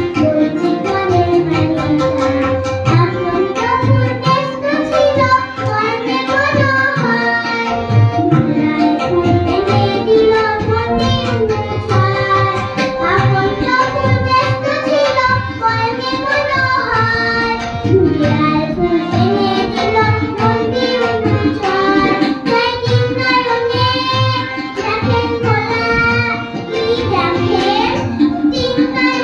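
A young girl singing a Bengali children's rhyme song while playing a harmonium, accompanied by tabla and an electronic keyboard.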